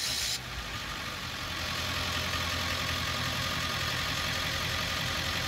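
Ford 7.3 L Powerstroke V8 turbo diesel in an '02 E-350 van, idling steadily, with a brief burst of hissy noise right at the start.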